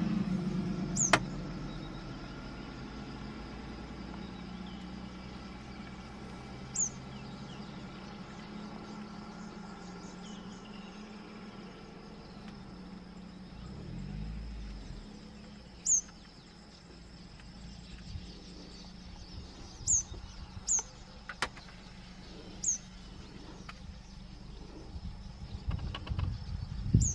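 Southern red bishop giving short, sharp, high chip notes that drop quickly in pitch, about seven of them at irregular intervals. Under them runs a steady low engine hum.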